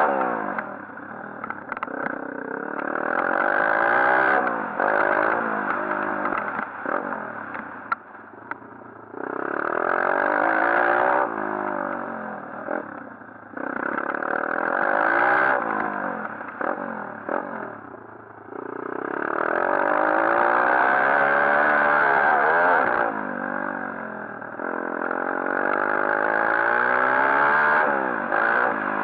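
140cc pit bike engine being ridden hard, opened up about five times, its pitch climbing in each burst and falling away as the throttle closes, with some clatter in between.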